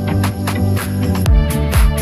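Upbeat electronic dance music with a steady kick drum and hi-hat beat under held synth notes.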